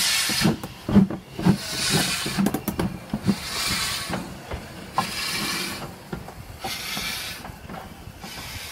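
Ivatt Class 2 2-6-2T steam tank locomotive 41298 running slowly past, with long hissing steam beats about every one and a half seconds and a quick run of knocks from the wheels and motion over the first three seconds. It grows quieter as it draws away.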